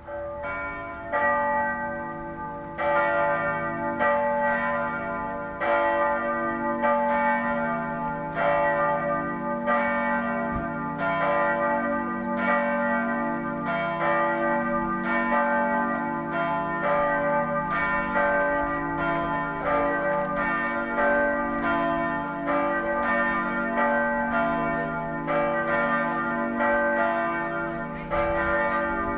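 Two swinging church bells, the small bell (cast 1890 by Bergholtz, about 1200 kg) and the 18th-century middle bell (about 1955 kg), ringing together in a steady overlapping peal. The strikes come about once a second and build up over the first few seconds. This is the sammanringning, the joint ringing that calls people to the Sunday high mass.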